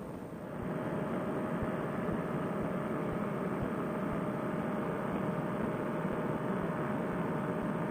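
Fresh Breeze Monster two-stroke paramotor engine and propeller droning steadily in flight, mixed with wind noise. The drone grows louder about half a second in and then holds steady.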